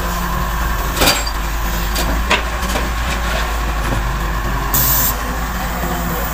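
Heavy diesel earthmoving machinery running steadily, with two sharp metallic knocks, one about a second in and one just after two seconds, and a short hiss of air near the five-second mark.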